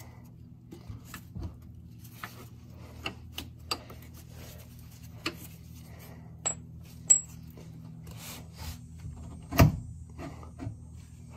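Scattered light clicks and knocks of metal suspension parts and tools being handled as a car's rear trailing arm is worked into position for its mounting bolt, with one louder knock near the end.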